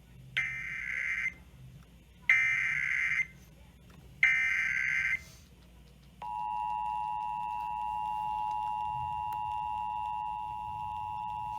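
Emergency Alert System test signal: three bursts of shrill SAME header data tones, each about a second long. About six seconds in, the steady two-tone EAS attention signal (853 and 960 Hz together) begins and holds.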